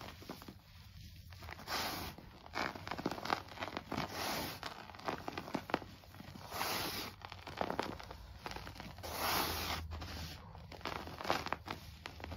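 Hands crushing and crumbling a pressed-powder chalk reform into loose powder: several swells of gritty, crunching hiss, each a second or so long, with sharp crackles as the lumps break apart.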